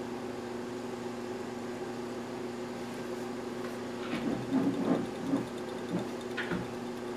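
Steady low background hum. Between about four and six and a half seconds in come a few light knocks and rattles from the brass clock movement being handled and turned over.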